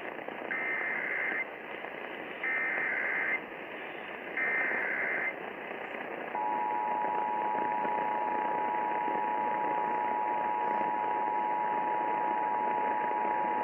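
Emergency Alert System test tones over radio with a steady hiss: three short bursts of SAME header data tones, then, about six seconds in, the steady two-tone EAS attention signal begins and holds.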